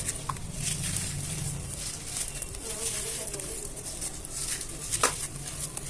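Chunks of black cement and sand being crumbled by hand, a continuous gritty crunching with small crackles, and a sharp snap as a piece breaks at the start and again about five seconds in.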